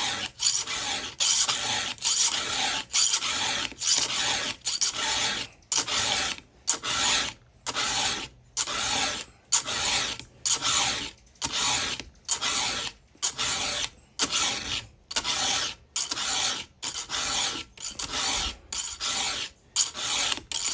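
A round chainsaw file rasping across the cutter tooth of a Carlton saw chain in steady strokes, about one a second, filing the cutter and its gullet sharp.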